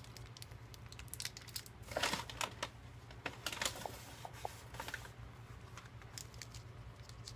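Paper food wrapper crinkling and rustling as a wrap is handled, in irregular spells of crackles and clicks, the busiest about two seconds in. A steady low hum lies underneath.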